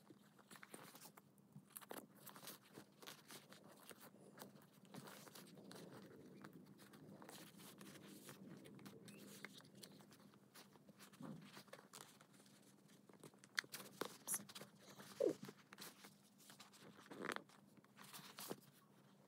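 Faint rustling of plush fabric and small clicks of plastic casings as a battery box and a purring mechanism are handled and squeezed into a plush toy's zip pouch. There are a few louder knocks in the second half.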